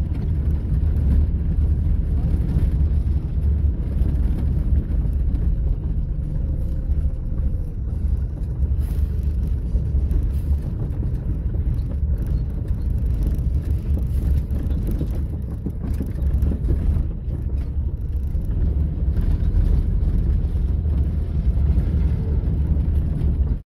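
Truck engine and tyres on a dirt road, heard from inside the cab: a steady, loud low drone while driving, with a few brief knocks and rattles around the middle.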